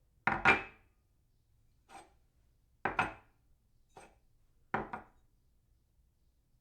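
A cup set down on a saucer three times, each a sharp double clink with a short ring. Fainter single taps come between the set-downs.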